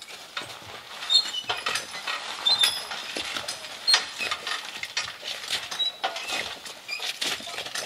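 Irregular metallic clinks and rattles of draft horses' harness and the forecart's hanging chains as the team shifts, with hooves shuffling on frozen, leaf-covered ground.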